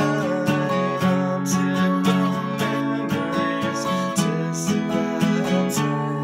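Acoustic guitar playing strummed chords.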